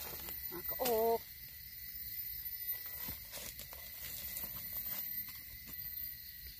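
Rubber boots and a walking stick rustling and crackling through dry leaf litter on the forest floor, with one short hum-like voice sound about a second in.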